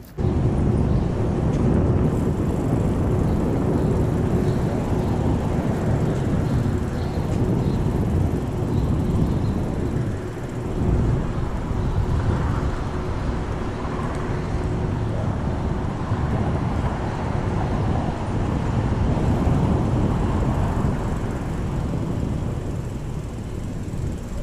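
Wind rumbling steadily over the microphone of a body-mounted camera on a moving mountain bike, mixed with the bike's rolling noise.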